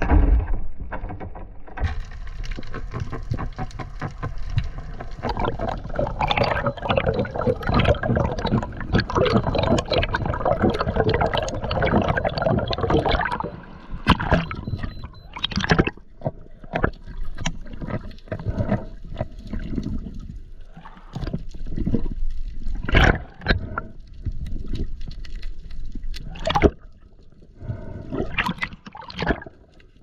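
Water bubbling and sloshing around a diving camera's microphone: a dense, continuous bubbling for about the first half, then a series of separate splashes and knocks.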